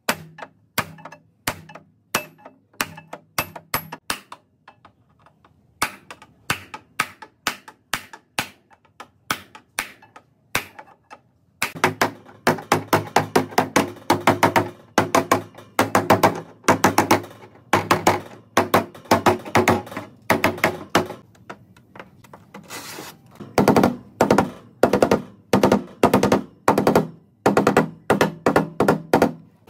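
A hammer driving a chisel into a rusted steel car floor pan: single sharp knocks about two a second with a short pause. About a third of the way in, a hammer beats along the lower edge of a rusted steel car door, faster metal blows that ring after each strike.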